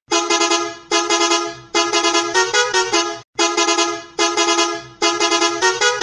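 Bus horn sound effect, pitch-shifted and edited into a run of short honks at changing pitches that form a little tune. It comes in phrases of about a second, with a brief break about three seconds in.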